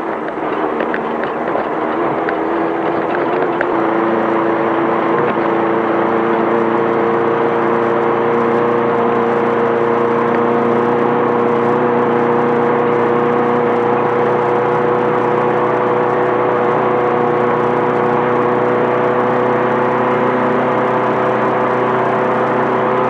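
Air-cooled 1600 cc VW flat-four of a Class 5/1600 desert-race Baja Bug running under way, with road and rattle noise. The engine note climbs a little over the first few seconds, then holds steady.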